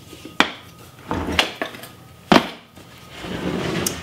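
Silverware clattering as it is packed into a wicker chest: three sharp metal clinks, the loudest about two seconds in, with rustling handling between them and a scraping shuffle near the end.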